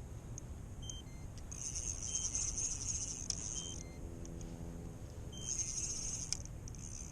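Spinning fishing reel cranked in bursts, a high whirring, while the angler plays a hooked trout.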